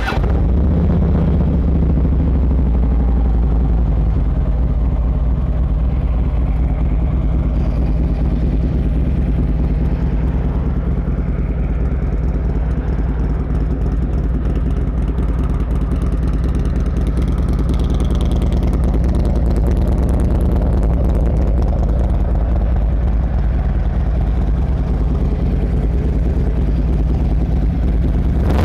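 Harley-Davidson Road Glide's 103-cubic-inch fuel-injected V-twin idling steadily.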